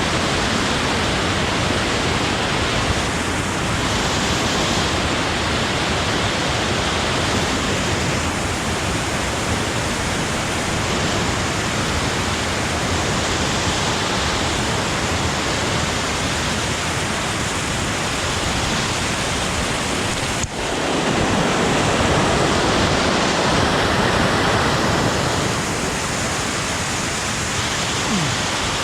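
Waterfall pouring close by: a loud, steady rush of falling water. About twenty seconds in it breaks off for an instant and comes back louder.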